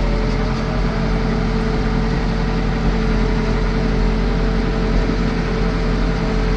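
Case 580 Super L backhoe's four-cylinder diesel engine running at a steady speed.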